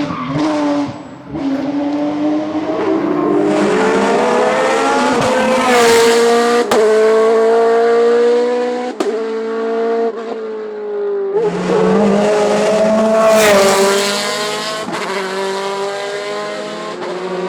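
Race car engine at full throttle, its note climbing and then dropping at each gear change, with a few sharp cracks at the shifts. It is loudest twice, about a third of the way in and again just past the middle.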